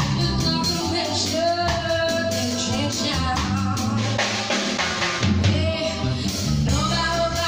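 Live soul band playing: a woman sings long held notes over electric bass and drum kit.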